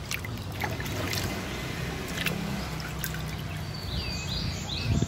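Water sloshing and splashing in a plastic bucket as a small plastic toy plane is swished through it by hand and lifted out dripping.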